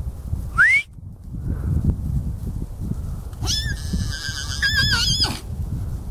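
A horse whinnies once, a high call of about two seconds starting some three and a half seconds in, its pitch quavering toward the end. Before that comes a brief rising squeak just before the first second, and wind rumbles on the microphone throughout.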